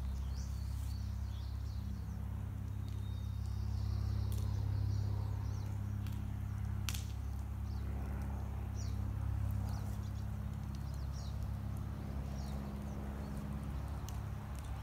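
Birds chirping now and then in short, quick calls over a steady low hum, with one sharp click about halfway through.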